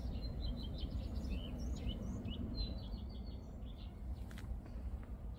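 A songbird singing a quick run of short chirps and trills that stops about two-thirds of the way through, over a steady low rumble.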